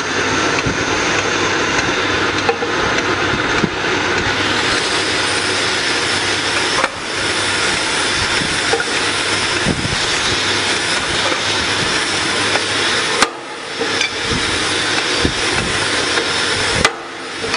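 Iron worker (multi cutter) running: a steady machine whir and hum from its motor and drive, with a few sharp knocks. The sound breaks off briefly twice near the end.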